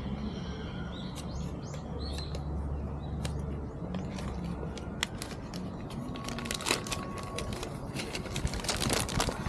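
Small birds chirping a few times about a second in, over steady outdoor background noise. From about six seconds in, a run of quick small clicks and crinkles, as of something being handled.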